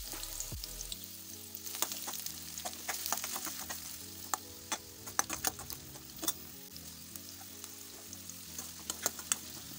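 Chopped onions sizzling in hot oil in a stainless steel pan, with the clicks and scrapes of a steel ladle against the pan as they are stirred.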